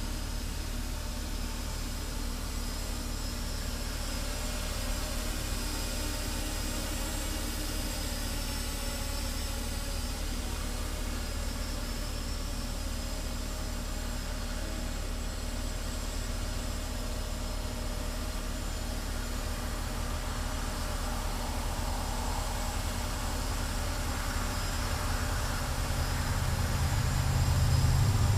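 An octocopter's eight iFlight brushless motors spinning 9-inch counter-rotating props in flight, giving a steady low hum of several tones. It grows louder over the last few seconds.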